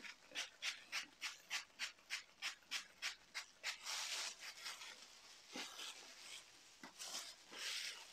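Hand-pumped spray bottle of temporary hair-colour spray being squeezed rapidly onto long hair: about a dozen short hisses, roughly three a second, then a few longer hisses.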